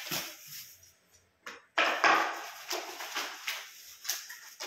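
Irregular clicks, knocks and rustling from office chair parts being handled and worked on, with a louder clatter about two seconds in.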